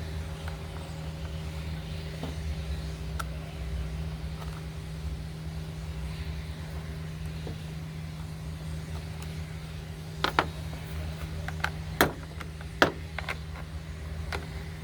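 A steady low hum in the background. From about ten seconds in there is a string of sharp clicks and knocks as tools and chainsaw parts are handled, likely the bar and chain being fitted back on.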